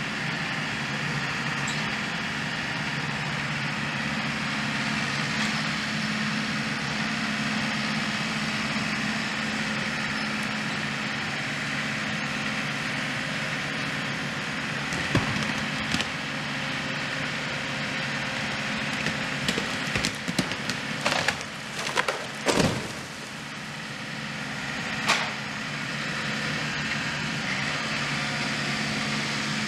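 Tractor engine running steadily while its front loader pushes over a dead tree. Wood cracks and snaps, first once or twice about fifteen seconds in and then in a quick series around twenty seconds in, ending in a heavy crash as the trunk comes down. One more sharp snap follows a few seconds later.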